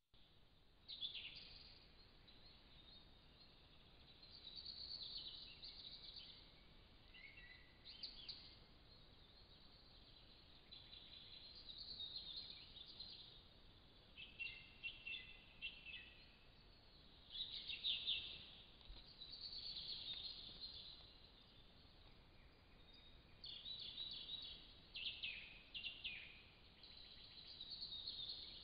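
Songbirds singing in the forest: short, high chirping phrases every few seconds, faint over a steady hiss.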